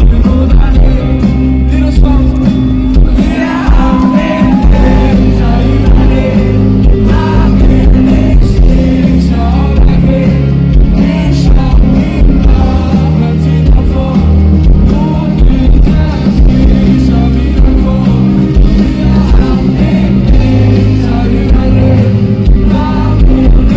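A live pop-rock band playing, with drums, bass, electric guitars and keyboards under sung vocals, heard loud from within the audience.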